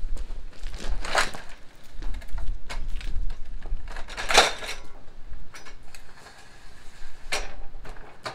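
Metal clanks and rattles of a folding, wheeled miter-saw stand being opened out and a compound miter saw being set onto its rails. Several separate sharp clanks, the loudest about four seconds in, under a low rumble.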